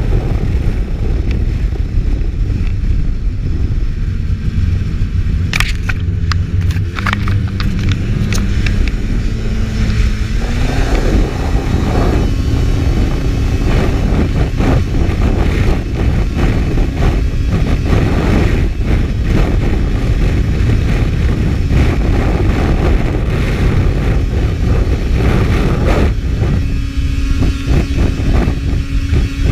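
Race snowmobile running at speed over lake ice, heard from an onboard camera under heavy wind rumble. The engine note climbs about ten seconds in and then holds steady, with a burst of sharp ticks a few seconds before the climb.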